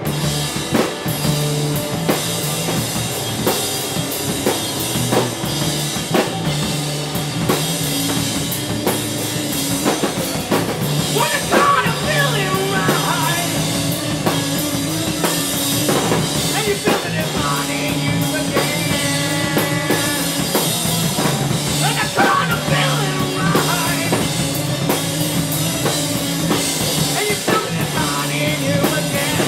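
Rock band playing live, with a drum kit driving the music.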